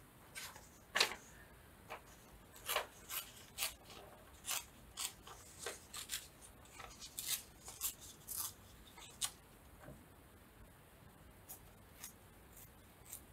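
Paper being handled: a run of short, dry rustles and scratches, about two a second, thinning out after about nine seconds.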